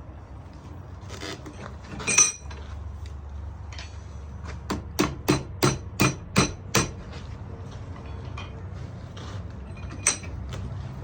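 Hammer blows on a 66-pound Vevor London pattern anvil. One ringing strike comes about two seconds in, then a quick run of about seven strikes at roughly three a second, then a single strike near the end.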